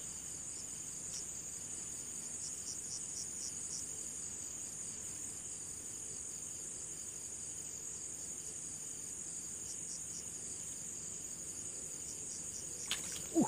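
Night insect chorus of crickets: a steady high-pitched trill with fainter repeating chirps over it. A single sharp click near the end.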